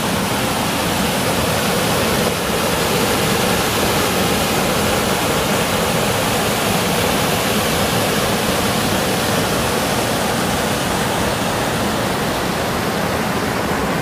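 Reservoir outflow pouring from a concrete outlet and splashing into the pool below: a loud, steady rush of falling water.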